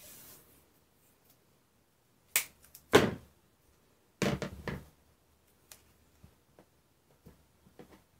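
An FPV quadcopter frame being handled and set down on a work mat: two sharp knocks a little over two seconds in, a short run of clattering about four seconds in, then a few light ticks.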